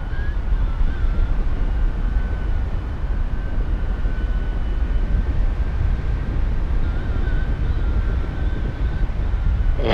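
Wind rushing over the camera's microphone in paraglider flight: a steady low rumble, with a faint thin high tone running underneath.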